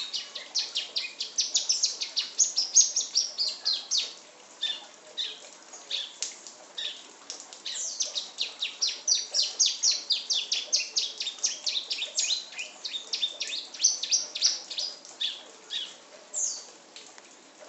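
A songbird singing in long, rapid runs of short high chirps, thinning out about four seconds in and picking up again about three seconds later.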